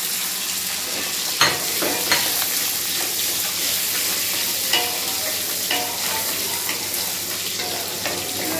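Shallots and curry leaves sizzling in hot sesame oil in an aluminium kadai, stirred with a wooden spatula. A few sharp knocks of the spatula against the pan, the loudest about a second and a half in.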